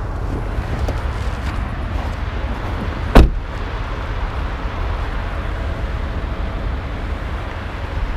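Mercedes-Benz GL 63 AMG on the move: a steady, loud rumble of engine and tyre noise. One sharp, loud thump cuts through about three seconds in.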